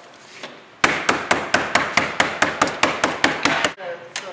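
A mallet tapping rapidly, about five sharp strikes a second, driving a connector strip into the seam between two cubicle panels. The tapping starts about a second in and stops shortly before the end.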